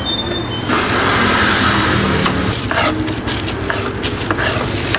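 Steady street traffic noise from passing vehicles, with several short sharp knocks of a serrated knife cutting on a cutting board from about halfway in.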